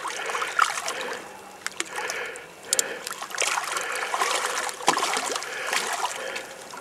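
A large hooked brown trout thrashing in shallow water at the bank, several separate splashes over a steady wash of moving water.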